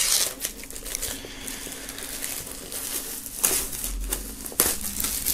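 Clear plastic shrink wrap being peeled and pulled off a vinyl LP sleeve, crinkling, with two louder crinkles in the second half.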